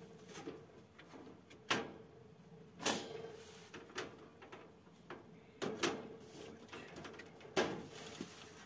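Rabbit-cage parts being fitted together: about half a dozen sharp knocks and clicks at irregular intervals as the cage floor pieces are snapped into place.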